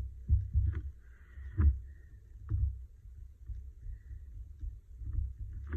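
Scattered soft, dull knocks and a faint papery rustle as hands handle a postcard and a marker pen on a desktop.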